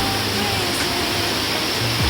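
Mountain stream water rushing over rocks, a steady, even noise.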